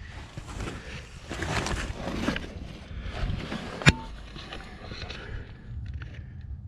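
1987 Pontiac Acadian's engine running with the exhaust broken loose just ahead of the catalytic converter, a steady low rumble with a rushing leak: effectively open headers. A single sharp knock comes about four seconds in.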